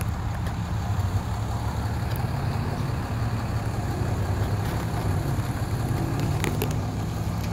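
A steady low mechanical hum of an idling engine, with a couple of faint clicks about six seconds in.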